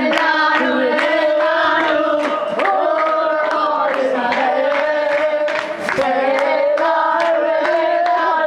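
A group of people singing together in unison, holding long notes, while clapping along to the beat.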